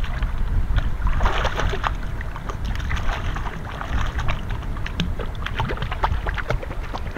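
River water splashing and sloshing as a puppy is washed by hand in the shallows, many quick irregular splashes over a steady low rumble.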